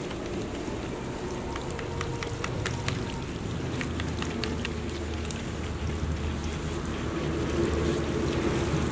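Water from a hose spraying onto a brush cutter's cutting head and splashing off it, with a steady motor hum underneath. Scattered sharp spatters and ticks come in the middle.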